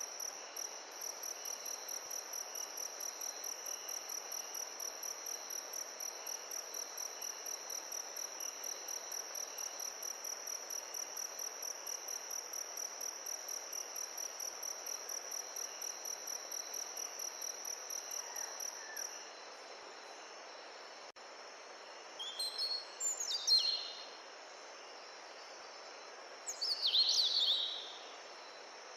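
An insect chirping in a steady, high-pitched, evenly pulsed trill that stops about two-thirds of the way through, over a steady background hiss. Near the end come two short bird calls with quick falling notes.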